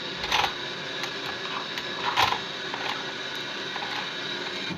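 Light clinks and clatter of kitchen utensils and cookware, two more distinct ones about half a second and two seconds in, over a steady background hum.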